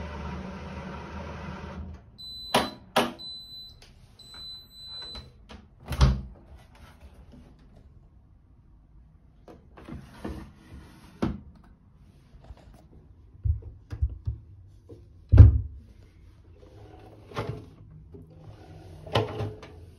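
Hotpoint Ariston AQ83D washing machine finishing its cycle: its steady running hum stops about two seconds in, then it gives its end-of-programme electronic beeps. After that come scattered clicks and knocks of the machine's door and handling, the loudest around six and fifteen seconds in.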